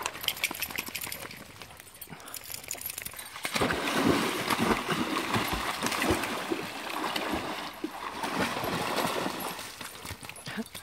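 A dog bounding and splashing through shallow creek water. The splashing starts suddenly a few seconds in, runs on as a loud uneven thrashing of water, and dies down near the end.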